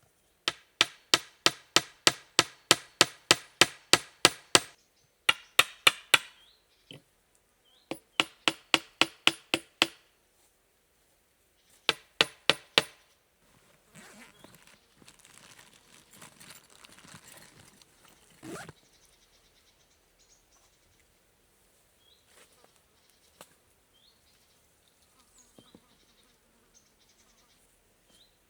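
Runs of sharp, rapid knocks, about four a second, each ringing briefly, stopping and starting four times; then a softer rustling for a few seconds that ends in a sharper sound.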